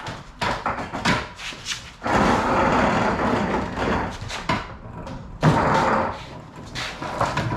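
A wooden cart-style stand being dragged out across a concrete floor. It scrapes loudly because only two of its four corners have swivel casters. Wood knocks and bumps along with it, with one sharp thump about halfway through.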